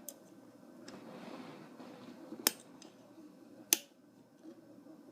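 A few sharp clicks from a toy handcuff as its lock is worked with a makeshift pick, the two loudest about two and a half and nearly four seconds in, with a faint rustle between them.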